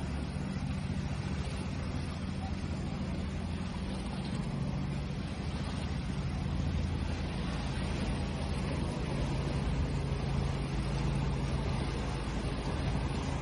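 Steady rushing of sea waves with a low, steady hum underneath.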